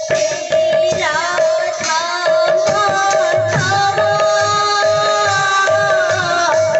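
Devotional kirtan music: a singer carries a melody into a microphone, holding one long note from the middle to near the end, over quick hand strokes on a two-headed barrel drum (mridanga) and a steady pulsing instrumental note.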